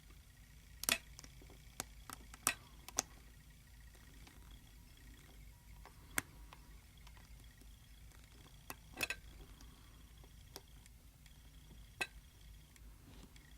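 Small sharp metal clicks and ticks, irregularly spaced and grouped in short runs, as a hook pick and tension wrench work the pins of an American 5200 padlock, a lock with serrated key pins and spool pins.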